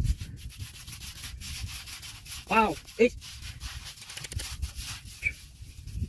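Fingers scraping and digging through wet, gritty sandy soil, a continuous rough rubbing and crumbling. Two brief vocal sounds break in near the middle, the louder one first.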